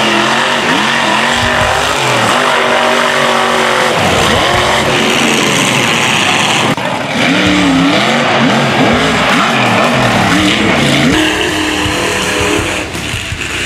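Mud-bogging mega truck engines revving hard, their pitch swooping up and down again and again as the trucks push through the mud, with a sudden break about seven seconds in where one run gives way to another.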